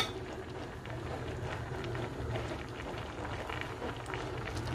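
Flat-bean and dried-fish curry simmering in a pan, bubbling steadily with small faint pops.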